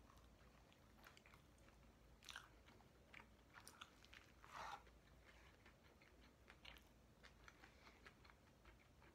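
A person biting into and chewing a McDonald's sandwich: faint crunches and small mouth clicks, the loudest crunch about four and a half seconds in.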